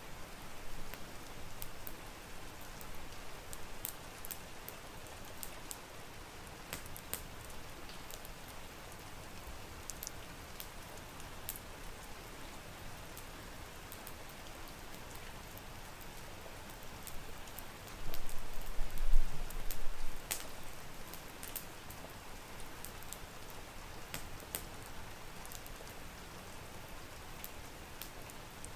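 Steady rain with scattered sharp crackles from a wood fire. About two-thirds of the way through, a brief low rumble rises above the rain for a couple of seconds.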